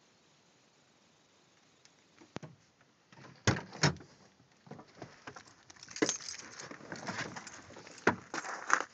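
Handling noise inside a parked car: quiet at first, then a run of sharp knocks and clicks with rustling between them as the camera is swung around the cabin.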